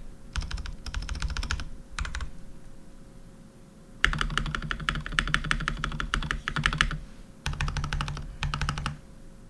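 Keychron V1 mechanical keyboard with stock Jwick T1 switches, tray-mount screws removed and plate foam fitted, being typed on in fast runs of keystrokes. Each keystroke is a sharp click over a low thud; the typing pauses for nearly two seconds about two seconds in, then a longer run and a shorter final burst follow.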